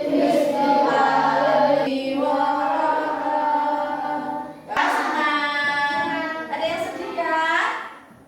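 Children singing together in long, held notes, phrase after phrase, with a short break about halfway through.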